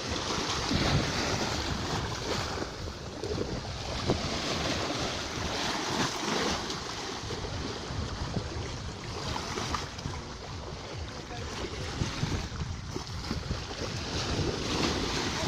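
Ocean waves washing in, the surf rising and easing every few seconds, with wind buffeting the microphone in a low rumble.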